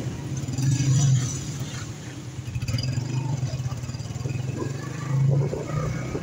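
Honda CG 125 motorcycle's single-cylinder four-stroke engine running at low road speed. Its note swells louder twice, about a second in and again near the end, over light street traffic.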